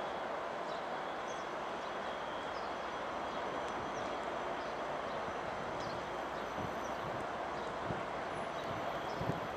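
Adif track-inspection rail vehicle running along the track as it pulls out of the station: a steady, even running noise with no change in level.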